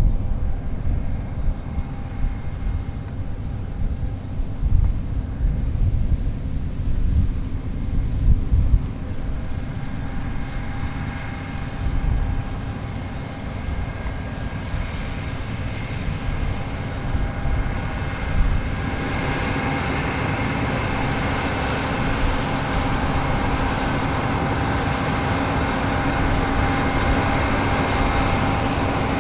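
New Holland CR11 combine harvester running in the field: its engine and threshing machinery make a steady drone with a few constant whining tones. It becomes louder and fuller about two-thirds of the way through, as the machine comes closer.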